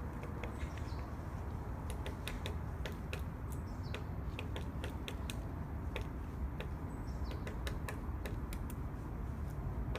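Woodpecker pecking at wood in irregular single taps, not a fast drumming roll. Faint high calls that slide downward are heard about three times, over a steady low rumble of background noise.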